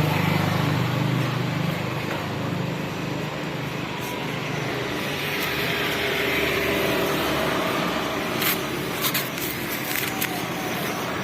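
Homemade 1/16-scale 4x4 RC truck driving, its motor and gearbox running steadily, with a few sharp clicks near the end.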